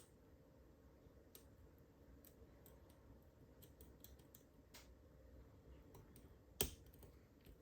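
Lock pick working the pin stacks of a Mul-T-Lock Junior padlock: faint, scattered clicks of the pick and pins, with a sharper click at the start and another near the end, as the pins set and the core gives.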